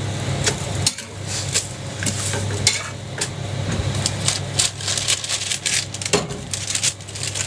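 Metal spatula scraping and tapping on a hot jianbing griddle in many quick strokes, with light sizzling, over a steady low hum.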